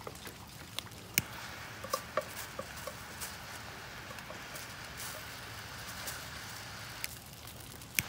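A handheld torch hisses steadily against a small pile of four-month-old 1:1:1 flash powder, which only fizzles and crackles with scattered sharp pops, the loudest about a second in and near the end. The powder fails to flash because the formula has degraded with age.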